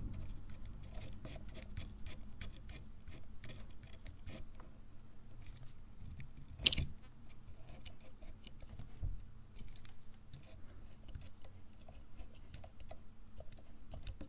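Pocketknife blade scraping and picking old light-seal material off the metal lens-mount ring of a Pentax 67 camera body: a run of small, irregular scratches and clicks, with one sharp, louder click a little before halfway.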